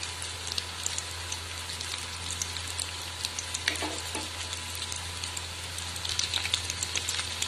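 Batter-coated baby corn deep-frying in hot oil: a steady sizzle with many fine crackles, busier near the end, as the pieces cook toward golden brown. A low steady hum runs underneath.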